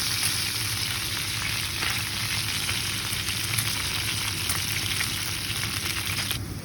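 Triple-cooked chips frying in a hot pan: a dense, steady sizzle with fine crackling, which cuts off suddenly just before the end.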